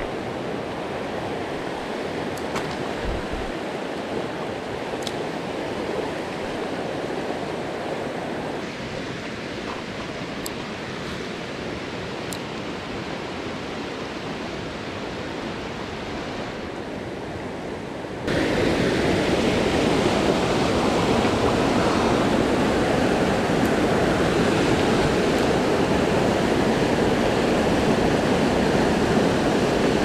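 Rushing water of a rain-swollen mountain stream running over stones, a steady wash of noise. About eighteen seconds in it turns suddenly louder: a churning stretch of white-water rapids.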